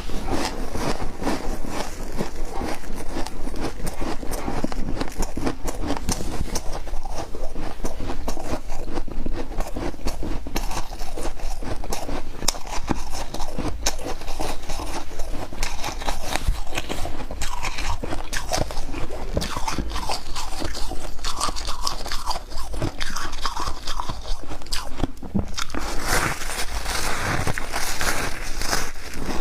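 Close-up crunching and chewing of frost ice, a dense run of irregular sharp crunches, with a thicker, scraping stretch near the end.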